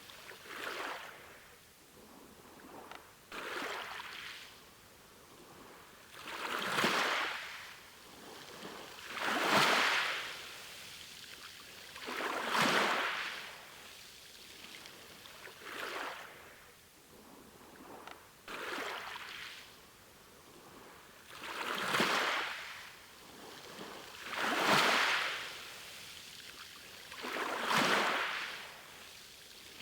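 Sea waves washing onto the shore, a swell of surf about every three seconds that rises and falls away, some waves louder than others.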